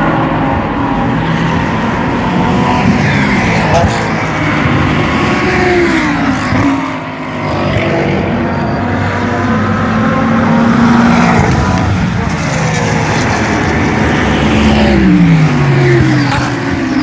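GT3 race car engines running hard at high revs, several cars overlapping. The engine pitch drops sharply about six seconds in and again near the end as cars go by.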